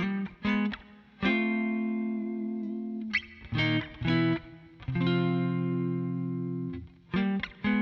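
Electric guitar with Zexcoil Legacy Signature P90-size pickups, played through a Twin Reverb amp model with no other effects. Two ringing chords are let sustain, with short choppy chord stabs between them and again near the end.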